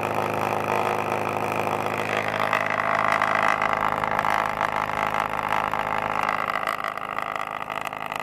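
Homemade pulse-motor-driven two-rotor flux generator running steadily under load, a hum of several steady tones from the spinning rotors and pulsed coils. It grows louder and brighter a few seconds in, then eases near the end.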